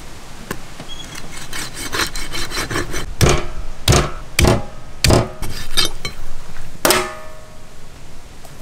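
A knife sawing through a large catfish's spiny dorsal fin in a series of short cutting strokes, heaviest around three to five seconds in. Near seven seconds the metal platter under the fish gives a single ringing clank.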